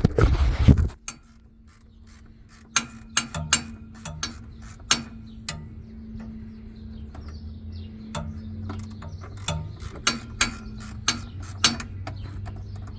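Ratcheting wrench working a fastener under a pickup during an oil change: sharp, irregular clicks over a steady low hum, after a loud scraping noise in the first second.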